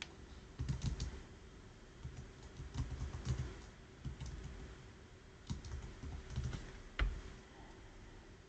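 Computer keyboard typing in short bursts of keystrokes with pauses between them, with one sharper, louder keystroke near the end.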